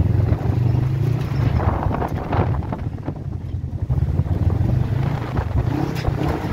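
Polaris RZR side-by-side's engine running steadily with a low rumble, with wind buffeting the microphone.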